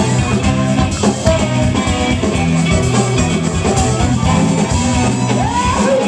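Live rock band playing with electric guitars, bass, drum kit and a horn section; a woman's singing voice comes in near the end with long held notes.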